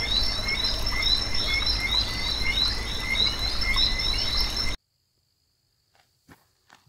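Nature ambience of frogs chirping in quick repeated calls over a steady high insect trill, cutting off suddenly about two-thirds of the way through.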